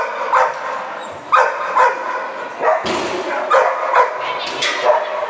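Border collie barking repeatedly, about two sharp barks a second, while running an agility course.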